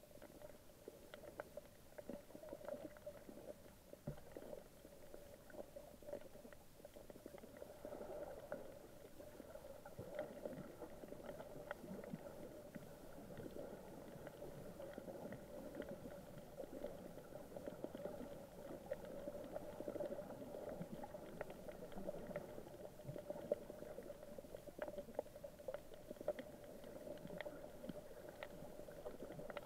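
Underwater ambience picked up by a submerged camera: a faint steady hum with scattered small clicks and crackles over a low rumble.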